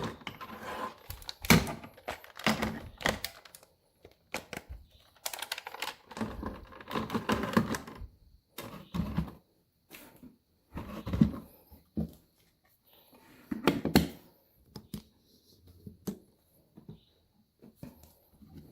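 Hard plastic parts of a DX transformation-belt toy being handled and clicked together: an irregular run of sharp clicks, clacks and knocks, with short gaps between them, growing sparser near the end.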